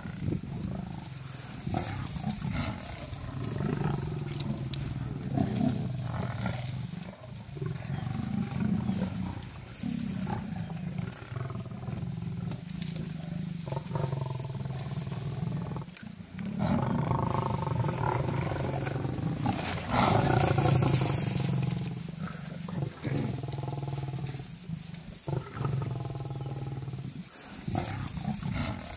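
Lionesses growling over a buffalo kill, several low, rough voices overlapping almost without a break and loudest a little past halfway: the pride is defending its carcass as buffalo press in close.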